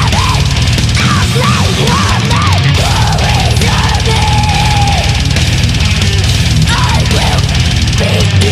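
Loud rock song with a shouted, sung vocal over a dense, steady band backing. The singer holds one note for about a second near the middle.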